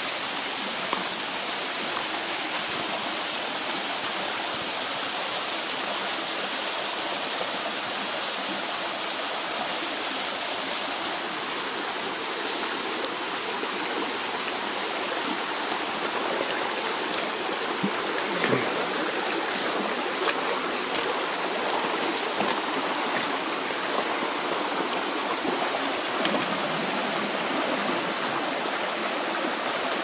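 Shallow rocky mountain stream rushing steadily over stones, with a few faint splashes and knocks from footsteps wading in the water.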